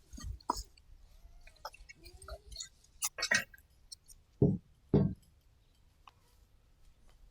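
Irregular knocks and metallic clinks from steel fence hardware being handled, with two heavier thuds a little over four and five seconds in.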